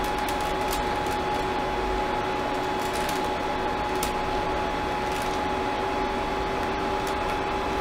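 Creality CR-10S Pro 3D printer standing powered on: a steady hum of its cooling fans with a steady whine.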